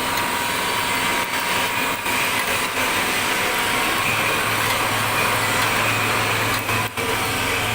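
Wood pellet mill running steadily under power: a continuous mechanical din with a steady whine, its low hum growing stronger about halfway through.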